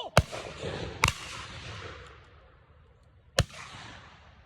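Three shotgun shots at passing doves: two about a second apart, then a third about two seconds later. Each is a sharp report that trails off in a rolling echo.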